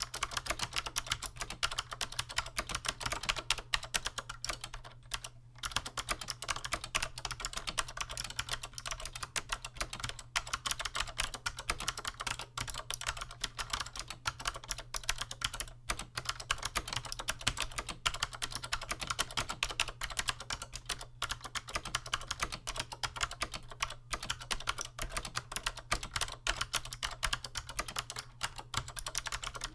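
Continuous fast typing on a 1993 Chicony KB-5581 keyboard with SMK second-generation "Monterey" clicky switches under PBT keycaps: a dense run of light, crisp key clicks, broken by brief pauses about 5 and 16 seconds in.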